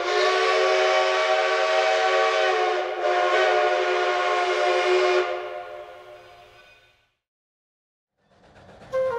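Multi-chime steam locomotive whistle blown in two long blasts, a steady chord of several tones with a hiss of steam. There is a short break about three seconds in, and the sound fades away about two seconds after the second blast ends.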